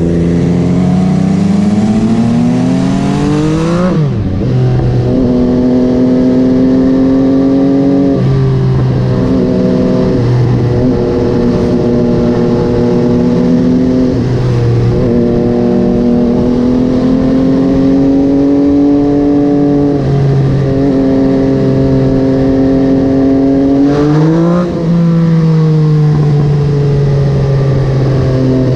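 MV Agusta Dragster 800's three-cylinder engine with a QD Power Gun exhaust, under way: revving up hard for about four seconds, then running at steady revs with short throttle lifts every few seconds, and a rising rev with a drop near the end.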